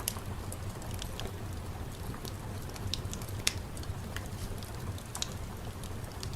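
Steady rain ambience: a low rumble and hiss with scattered sharp drips or crackles, the loudest about halfway through.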